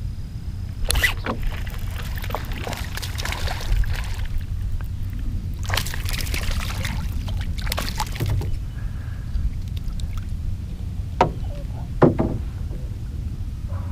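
A hooked bass splashing and thrashing at the water's surface as it is reeled in and landed, in several bursts, with a steady low rumble of wind on the microphone. Two sharp clicks near the end.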